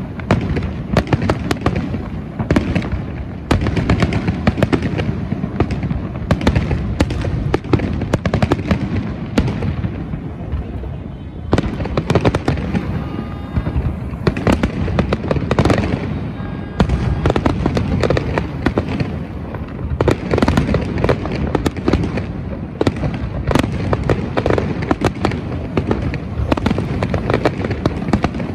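Aerial fireworks display: a rapid, continuous barrage of bangs and crackles from bursting shells. It thins briefly about ten seconds in, then builds back up.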